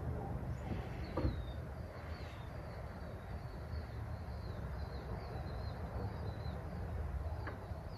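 Quiet background: a steady low hum with faint, wavering high-pitched chirps repeating throughout, and a soft click about a second in.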